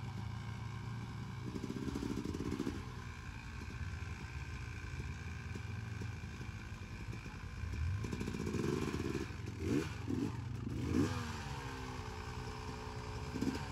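A vehicle engine running steadily, then revving up and down several times in the last third.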